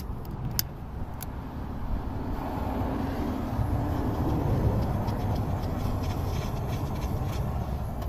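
A few light clicks, then steady rushing air noise from about two seconds in, as glue-lined heat-shrink tubing over soldered wire splices is being heated.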